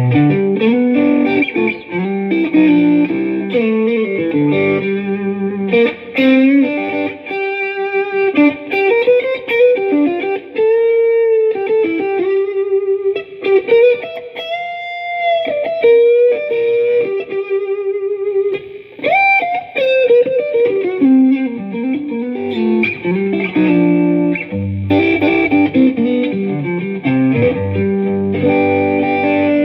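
Electric guitar played through a ShepTone Good Enough For Leo single-coil neck pickup: chordal passages at the start and near the end, with long held notes that waver with vibrato in the middle.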